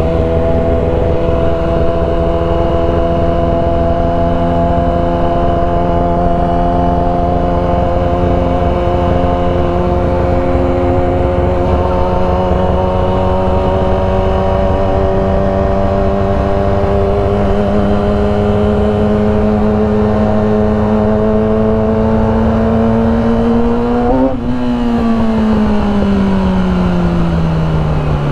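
Motorcycle engine under way, its pitch climbing slowly and steadily for over twenty seconds as the bike gains speed. About twenty-four seconds in the throttle closes and the pitch falls steadily as the bike slows. A constant low rush runs underneath.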